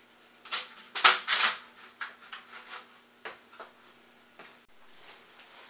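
Metal tubing and 3D-printed plastic roller assemblies knocking and clattering as they are handled and fitted together: a few sharp knocks in the first second and a half, then fainter, scattered clacks.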